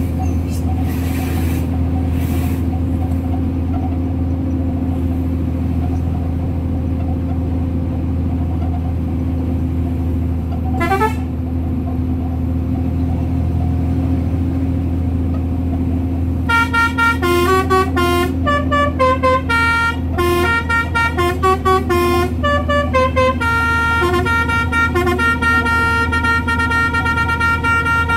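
Concrete mixer truck engine running steadily with a deep drone. A brief rising, wavering tone comes about eleven seconds in. From just past halfway, a horn plays a tune of quick stepped notes over it.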